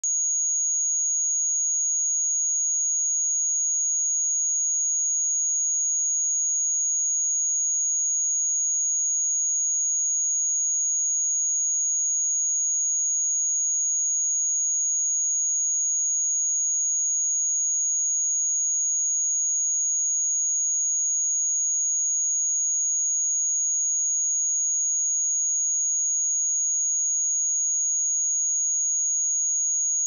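A pure 6672 Hz sine-wave test tone, one steady high-pitched tone held at a constant level.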